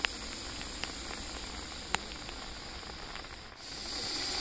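Russell's viper hissing defensively, a long breath-driven hiss that is softer for most of the stretch, breaks off briefly, then starts again louder near the end. The viper makes this loud hiss when agitated, to defend itself.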